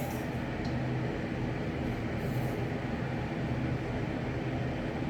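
Steady low mechanical hum under a faint rushing noise, even throughout.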